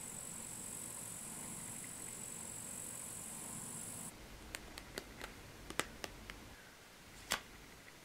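Faint steady hiss that cuts off about four seconds in, then a scatter of light, sharp clicks and taps: playing cards being dealt onto a table.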